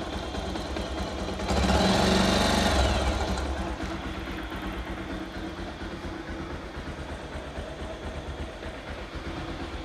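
Bajaj Pulsar 180's air-cooled single-cylinder engine idling steadily, with the battery fuse pulled so that the magneto and regulator-rectifier alone keep it and the lights running. A louder noise swells for about two seconds from a second and a half in, then fades back to the idle.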